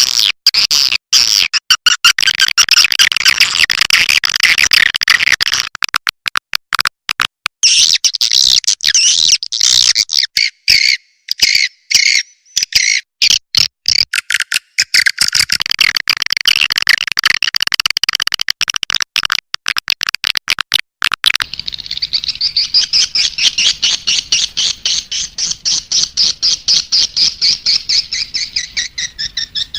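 Swiftlet lure call: dense, rapid twittering and chittering of swiftlets, chopped into quick bursts with many abrupt breaks. About two-thirds of the way through it changes to a thinner, faster, even chitter.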